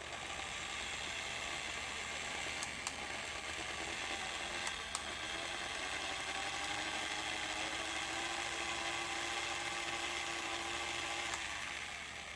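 DeWalt DCG412 cordless angle grinder's brushed motor running: a click as it switches on, then a steady high whir with a few faint ticks, starting to wind down at the very end.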